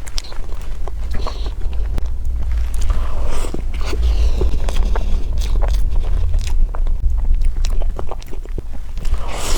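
Close-miked chewing of sesame crepe cake: many quick wet mouth clicks and smacks, over a steady low rumble.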